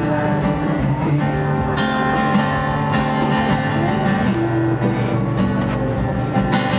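Acoustic guitar played live, strummed and picked notes heard through stage speakers, with no singing.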